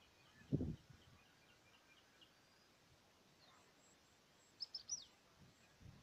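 Bird calls in a quiet outdoor setting: a faint run of short high chirps, then three quick, high notes falling in pitch about four and a half seconds in. A low thump about half a second in.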